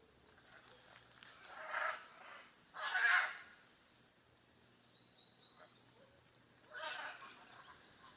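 Macaws squawking: a few short, harsh calls, the loudest about three seconds in and another near the end.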